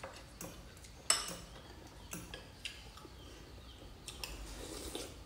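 Metal forks and spoons clinking against ceramic bowls while eating noodles: a few scattered light clinks, the sharpest about a second in.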